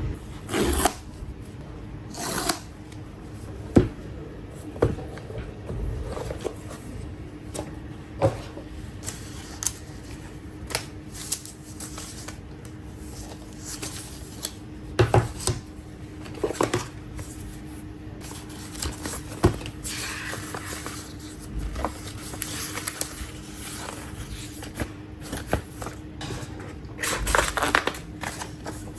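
Hands unboxing a tablet: scattered taps and knocks, with rustling and scraping of the box and packaging, over a steady low hum.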